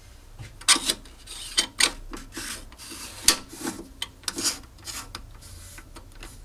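A lens helicoid and knurled focusing ring being twisted and worked off a turned metal blank by hand: a series of short, irregular metal-on-metal rubbing scrapes.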